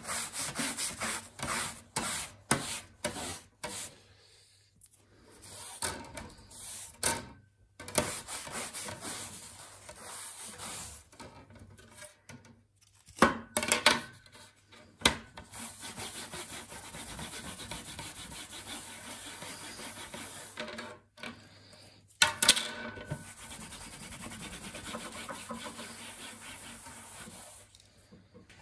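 A cloth wiping perforated sheet-metal cover panels: short rubbing strokes at first, then long steady scrubbing. A few sharper knocks come in between as a panel is handled.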